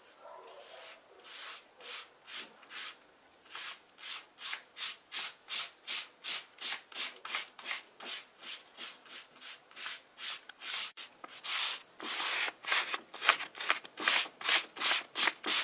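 Small applicator rubbed back and forth over leather, working red pigment into the surface. The scratchy strokes come about two a second and grow louder and a little faster in the last few seconds.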